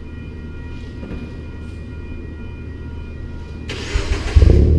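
2013 Scion FR-S's 2.0-litre flat-four cranked over by the starter near the end, then catching and firing up loudly through an aftermarket Cherry Bomb exhaust.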